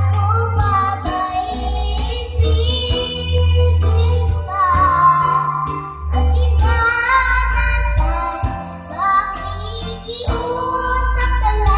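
Young girl singing a melody into a handheld microphone over a backing track with a steady beat and bass.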